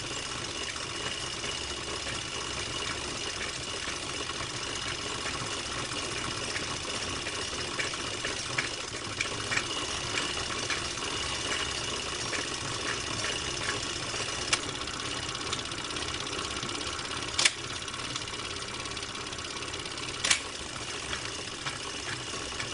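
Cine film projector running: a steady mechanical whirr under the silent film footage, with three sharp clicks in the second half.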